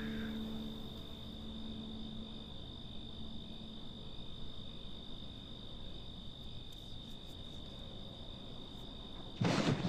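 Crickets chirping in one steady, unbroken high trill, a night-time insect ambience. A short, loud burst of noise breaks in near the end.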